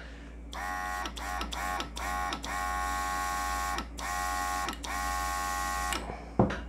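NEOECO cordless mini airbrush compressor running in bursts as the airbrush trigger is pressed and released: a steady motor whine with air hissing through the airbrush. There are four short bursts, each rising in pitch as the motor spins up, then three longer ones.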